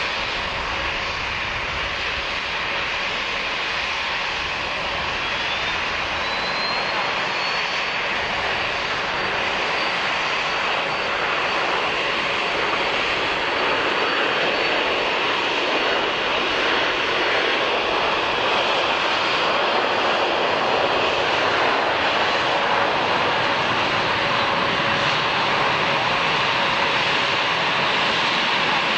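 Airplane engines running with a steady broad rush of noise. About six seconds in, a high whine rises and then holds, and the sound grows slightly louder toward the end.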